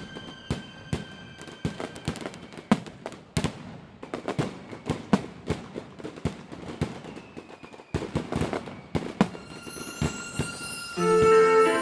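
Fireworks bursting in quick succession: a dense run of sharp pops and crackles. The show music comes back in, louder, near the end.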